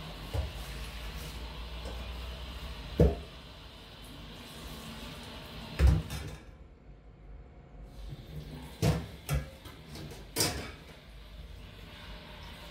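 A handful of separate sharp knocks and bumps, about five, spread over the stretch, with a low steady hum underneath.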